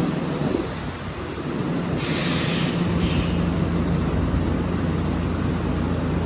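Odakyu 1000-series electric train (unrenewed set 1251F) at the platform, with a steady low electrical hum. A loud burst of hiss comes about two seconds in, and a shorter one follows a second later.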